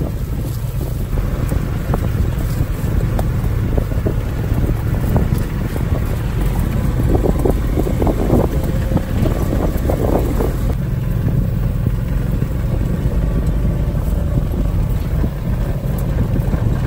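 An open utility vehicle driving along a dirt field track: a steady low engine rumble with wind across the microphone, and a patch of knocks and rattles about halfway through.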